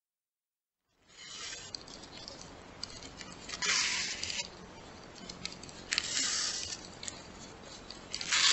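Shoelace being drawn through the holes of a laminated paper lacing card, with the card and lace rustling against the hands. Three louder swishes as the lace is pulled through, about two seconds apart, after a second of silence.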